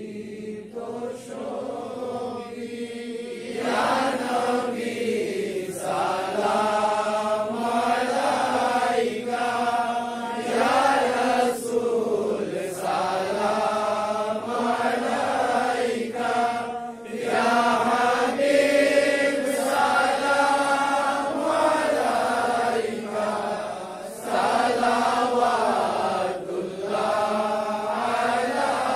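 Devotional chanting: a melodic vocal chant held in long phrases with short breaks between them, getting louder about four seconds in.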